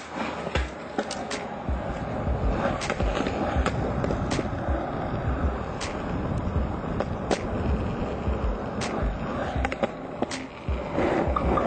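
Steady rumbling noise with irregular thumps and clicks throughout, as a handheld camera is carried along on the move.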